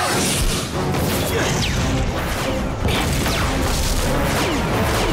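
Cartoon action sound effects over a music score: fired slugs whooshing as they transform in flight, with crashes and an explosion.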